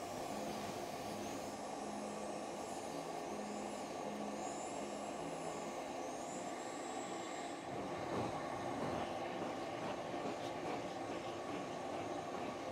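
A dog's wet nails being filed with a corded rotary nail grinder: its high whine dips and recovers as the bit meets each nail, over a steady rushing machine noise. The whine stops about seven and a half seconds in, after which light brushing strokes are heard over the steady noise.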